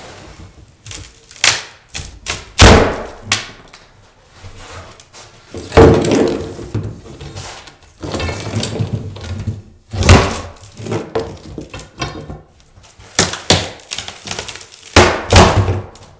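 Crowbar prying up glued, nailed-down particle board from the plywood subfloor. A series of sharp cracks and thunks comes as the board splits and breaks away in chunks, with short stretches of crunching between them.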